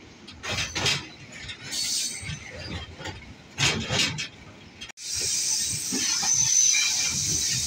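Freight train on the move, its wagons clanking and rattling in irregular metallic knocks. About five seconds in the sound cuts to a steadier, louder running noise of the train with faint thin high tones over it.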